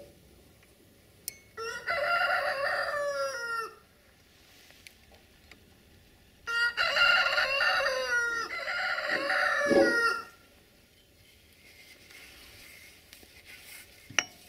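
A rooster crowing twice, the second crow longer than the first. A couple of sharp clicks near the end.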